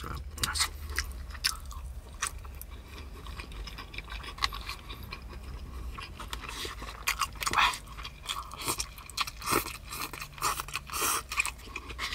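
A person chewing and biting into chicken tikka close to the microphone: irregular short crunches and smacks, thicker toward the second half.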